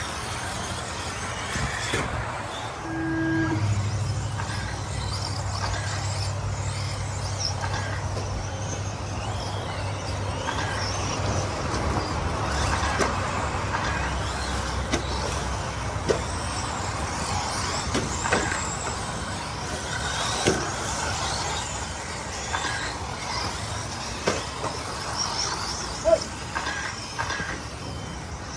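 Battery-electric RC race trucks and buggies running laps on a dirt track: high motor whines that rise and fall as cars pass, over a continuous hiss of tyres and dirt, with a few sharp knocks in the second half. A low steady hum runs under the first third.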